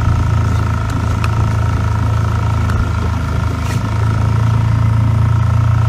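Motorboat engine running at a steady speed: a constant low drone with a faint steady whine above it, getting slightly louder about four seconds in.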